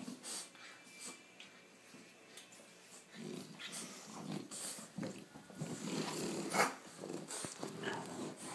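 A French bulldog and a Boston terrier puppy play-fighting: low growls and breathing noises in irregular bursts, loudest about six and a half seconds in.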